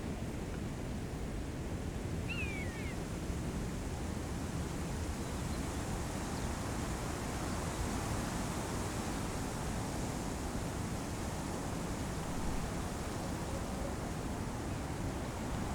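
Wind blowing steadily through trees, an even rushing. A brief high chirp about two and a half seconds in.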